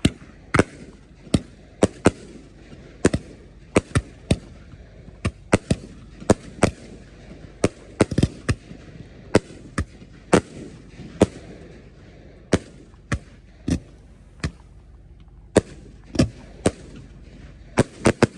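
Aerial fireworks going off: a rapid, irregular string of sharp bangs, about one and a half a second, each a shell or comet bursting overhead, with a low rumble between the reports.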